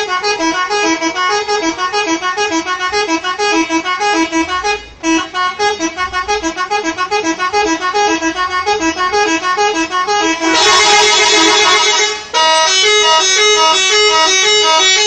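Indonesian bus 'telolet' multi-tone horn playing a fast stepping melody of several notes a second, with a short break about five seconds in. Around ten and a half seconds it changes to a louder, denser blast of many tones sounding together for about a second and a half, then breaks off briefly and the melody resumes.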